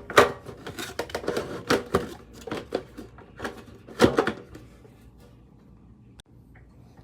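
Irregular clicks and clacks of embossed metal collector cards and their packaging being handled, the loudest near the start and about four seconds in, stopping about four and a half seconds in.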